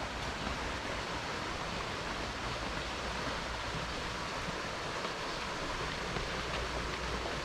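Stream water rushing steadily over rocks, an even hiss with a low rumble beneath.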